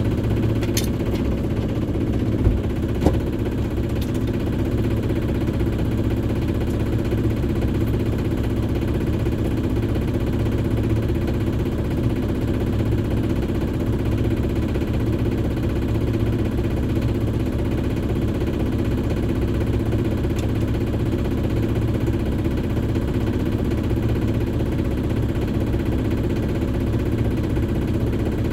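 Shipman 28 sailboat's inboard engine running steadily under way while motoring, a constant low hum. Two short knocks about two and a half and three seconds in.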